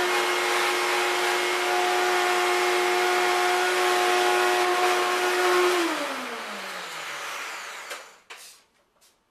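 Vacuum cleaner running steadily with a whine, then switched off about six seconds in, its motor winding down and the whine falling in pitch. A few light knocks follow near the end.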